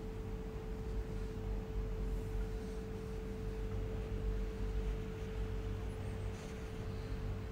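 A steady hum holding one clear mid-pitched tone, with a weaker deeper hum and a low rumble underneath.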